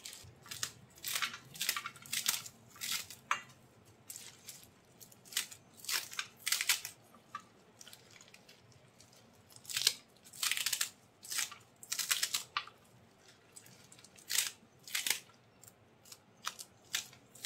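Small kitchen knife slicing through a hand-held bunch of fresh amaranth (chaulai) leaves and tender stems, chopping them fine: a run of short, crisp cuts, a few each second, with a brief pause about halfway through.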